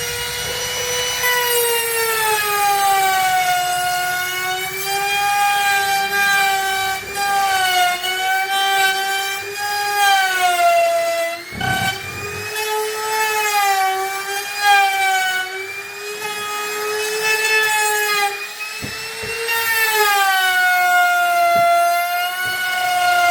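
Electric woodworking power tool running at high speed, a steady whine whose pitch sags and recovers as the tool meets load, with a short break about halfway through.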